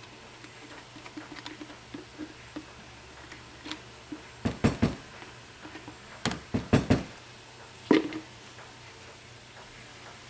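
Lye solution trickling from a plastic pitcher into a plastic tub of soapmaking oils, with soft patters and drips, then several sharp plastic knocks and clunks in quick clusters around the middle as the pitcher taps against the tub and is set aside.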